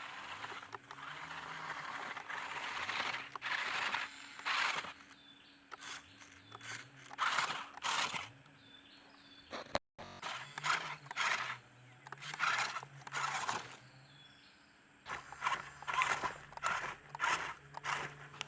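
Mini 4WD RC truck's small electric motor and gears whirring in repeated short bursts as the throttle is pulsed, some bursts running close together and some spaced apart.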